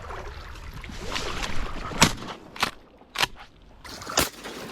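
Shotgun fire: one loud blast about two seconds in, followed by three more sharp cracks over the next two seconds.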